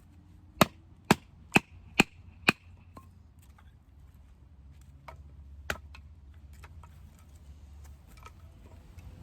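A baton striking the spine of an L.T. Wright Sospes fixed-blade knife to split wood: five hard hits about two a second, some followed by a brief ring, then a pause and one softer hit a few seconds later, with faint knocks of wood after it.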